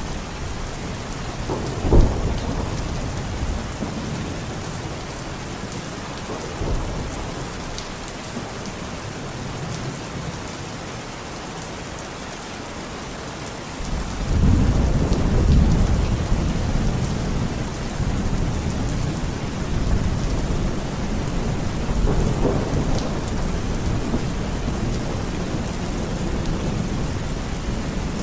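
Steady rain falling, with thunder: a sharp clap about two seconds in, and a long low rumble that swells about halfway through and slowly fades.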